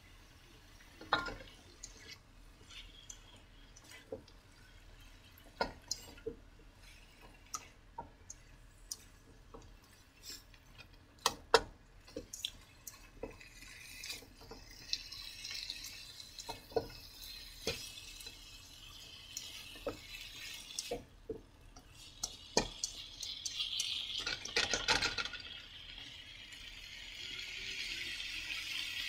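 A spatula tapping and scraping against a nonstick wok as chayote strips and ground meat are stir-fried, in scattered irregular knocks. A frying sizzle grows louder over the second half.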